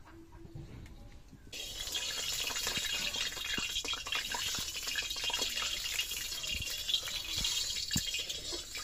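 Oil heating in an iron kadai over a wood fire, sizzling with a steady hiss and many small crackles that start about a second and a half in, while a metal spatula stirs it.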